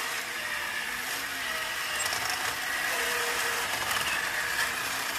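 Robot 2001 toy robot's battery motor and gearbox whirring steadily as it moves, running slowly.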